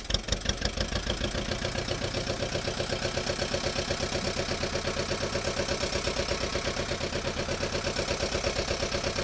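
Fishing boat's inboard diesel engine running steadily at idle, a fast, even pulse.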